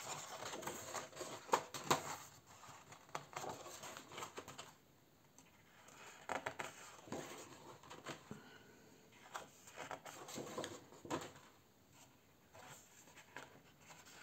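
Paper pages of a colouring book being turned and handled by hand: on-and-off rustling with soft flicks and taps, busiest in the first four or five seconds.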